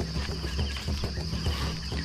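Steady high-pitched insect drone from the field, with faint bird chirps and irregular low thumps and rustling close to the microphone.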